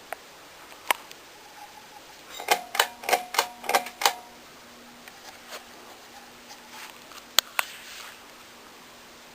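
A ceiling fan's pull-chain switch clicking in a quick run of about four clicks a second, after which a faint steady motor hum sets in. Two more clicks come near the end.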